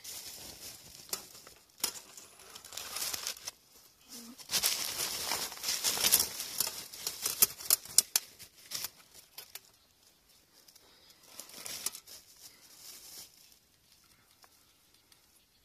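Thin plastic shopping bag rustling and crinkling as hands rummage in it, in irregular bursts with sharp crackles, loudest in the middle and fading to softer rustles near the end.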